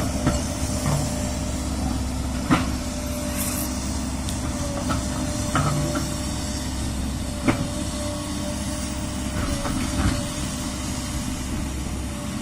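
JCB excavator's diesel engine running at a steady pitch, with about five short, sharp knocks spaced a couple of seconds apart.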